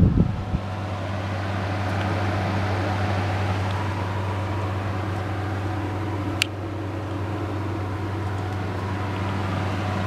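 Ceiling-mounted Singer electric space heater running, its fan blowing air steadily over a low, even motor hum. A single brief click about six and a half seconds in.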